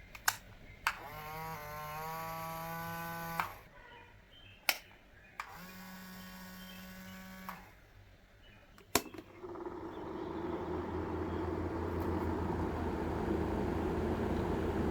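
Switch clicks and the small battery-powered DC motors of homemade fans: one spins up with a rising whine and runs for about two seconds before clicking off, then a second runs with a steady whine for about two seconds. After another click, about nine seconds in, a louder, noisier fan whir starts and builds.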